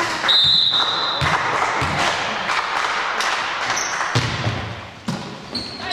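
A basketball bouncing on a hall floor, with scattered knocks over a steady hubbub in a large room, and a short high-pitched tone about half a second in.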